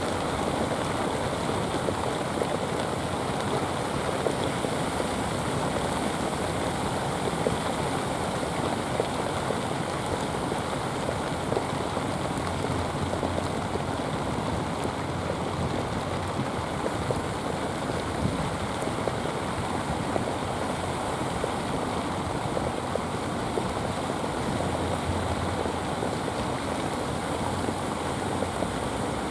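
Steady rushing water noise of rain falling on the sea, with surf washing at the shore.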